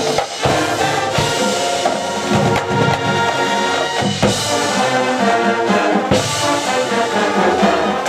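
Marching band playing: a full brass section holding sustained chords, punctuated by several sharp percussion hits from the drums and front ensemble.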